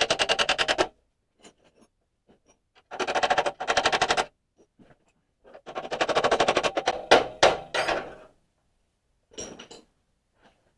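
Rapid hammering strikes in four bursts of about ten blows a second, driving a shaft out through a garden tractor's steering assembly; the third burst is the longest and ends in a few heavier, separate knocks.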